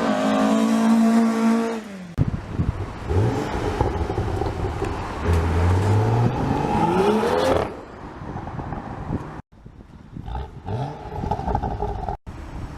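BMW M135i's turbocharged inline-six revving hard through an aftermarket exhaust. A high engine note sags and breaks off about two seconds in, then climbs steadily through the revs and cuts off abruptly just past the middle, followed by quieter blips with sharp pops and crackles.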